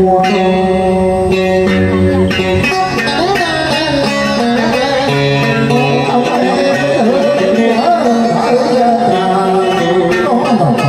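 Southern Vietnamese đờn ca tài tử music: an instrumental passage led by a plucked guitar of the scalloped-fret kind used in this music, its notes bending and sliding.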